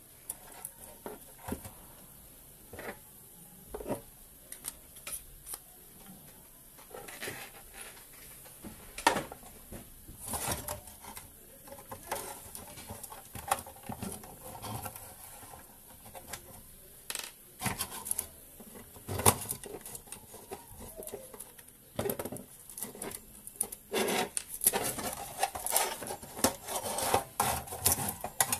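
Irregular clicks, taps and scrapes of a small rusty sheet-metal box being handled and turned over on a workbench, growing busier and louder in the last several seconds.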